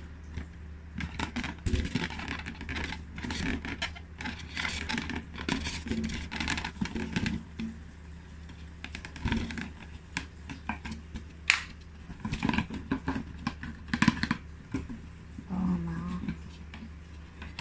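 Handling noise from a latex balloon and a plastic balloon cup-and-stick holder being worked together by hand: irregular clicks, scratches and rubbing as the balloon neck is pushed into the cup and the string is pulled around it.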